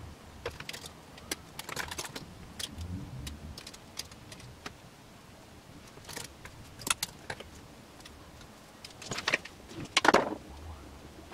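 Clothes being tidied away by hand: fabric rustling and light metallic clinks of hangers on a wardrobe rail, in scattered short bursts, the loudest rustle about ten seconds in.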